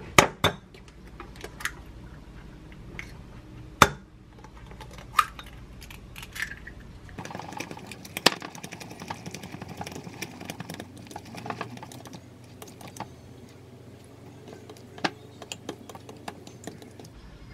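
Eggs knocked sharply against a glass mug to crack them, near the start and again about four seconds in. From about seven seconds, chopsticks beat the eggs in the glass mug with a fast, steady clicking against the glass.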